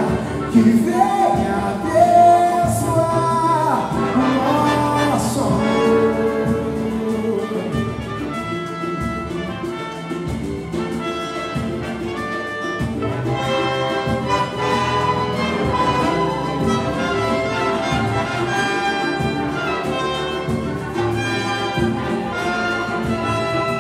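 Orchestra with brass playing an instrumental samba passage, the closing stretch of the arrangement after the singing has stopped.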